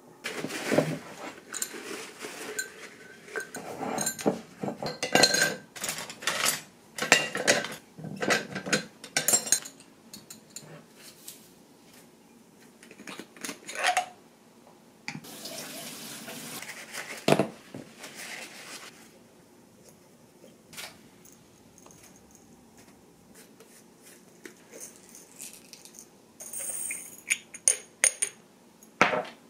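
Kitchen clatter: utensils, jars and dishes knocking and being set down on a stone countertop, in many sharp clinks over the first ten seconds. A few seconds of running water come around the middle. Near the end there is a fine rattle of whole peppercorns being poured into a glass grinder jar.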